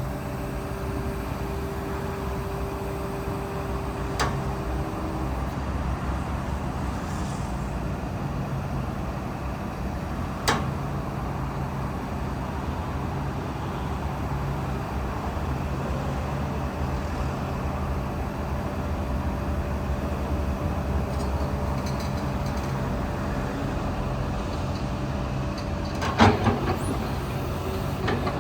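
Komatsu PC200-11 hydraulic excavator running steadily, with a steady whine that stops about five seconds in. Sharp metallic knocks come about four and ten seconds in, and a louder cluster of knocks comes near the end.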